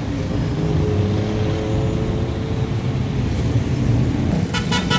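Street traffic with engines running close by, and a vehicle horn sounding a quick series of short toots near the end.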